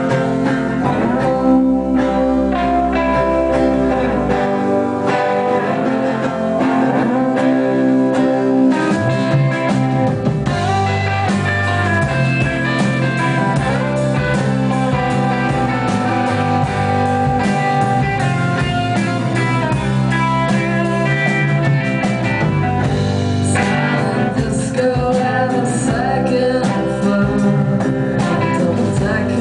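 Live band playing a song led by guitar, with singing and a steady bass line.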